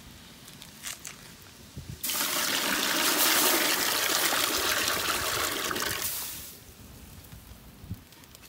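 Water poured in a steady stream into a large metal cooking pot, filling it. The pour starts suddenly about two seconds in and tapers off about four seconds later.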